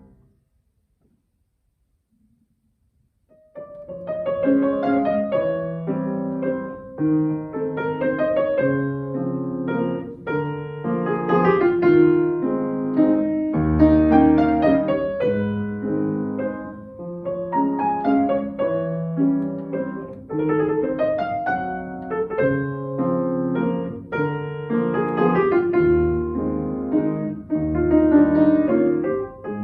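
Solo acoustic piano: about three and a half seconds of silence, then the piano starts a classical piece and plays on steadily, with low bass notes under the melody.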